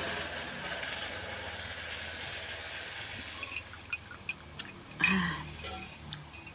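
A spoon clinking repeatedly against a glass jar mug as a drink is stirred, ending in one louder knock about five seconds in, before which there is a soft steady hiss of drinking.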